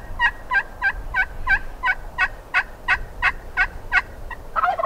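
A long series of hen turkey yelps blown on a turkey call, about three evenly spaced notes a second, answering a gobbler to draw him in. A Merriam's gobbler's rattling gobble cuts in right at the end.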